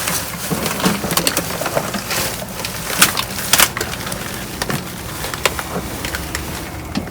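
Rummaging through trash in a dumpster: dense crackling and rustling of bags and packaging with sharp knocks. The two loudest knocks come about three seconds in and half a second later.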